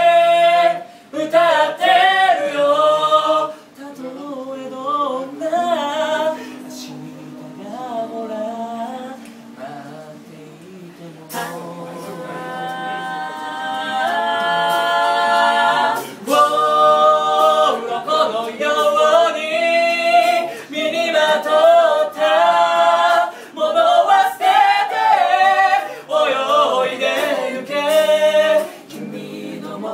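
A cappella vocal group singing in close harmony, women's voices with a man's, unaccompanied. The singing drops to a softer passage after a few seconds, then swells back with long held chords about twelve seconds in.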